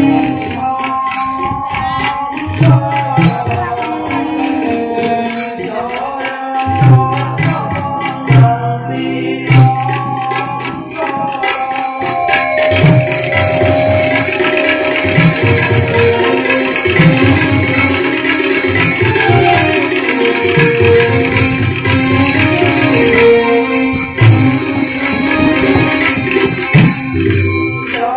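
Indian devotional music with tabla drumming under a held melodic line, filling out and growing louder about twelve seconds in.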